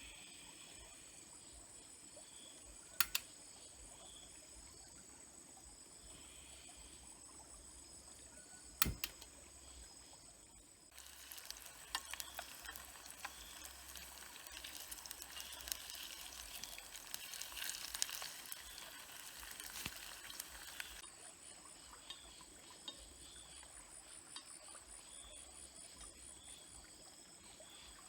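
Insects trilling steadily under a faint background of running water, with two sharp clicks a few seconds apart. About eleven seconds in, a dense crackling, liquid sound starts, lasts about ten seconds and cuts off suddenly.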